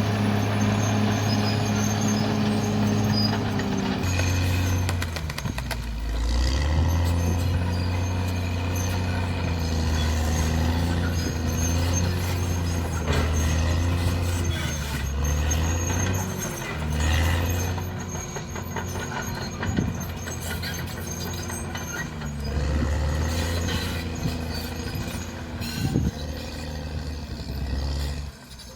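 Caterpillar D6R bulldozer's diesel engine running and repeatedly lugging down and picking up again as the blade takes and sheds load, with squeals and knocks from the machine's running gear.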